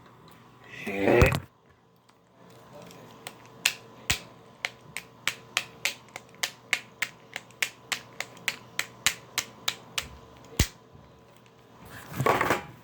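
A steady run of about twenty sharp clicks or snaps, roughly three a second, lasting about seven seconds. A short pitched sound ending in a sharp click comes about a second in, and another short pitched sound comes near the end.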